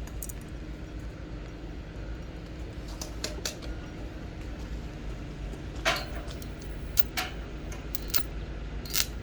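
A low steady hum with a few scattered light clicks and clinks, the loudest about six seconds in.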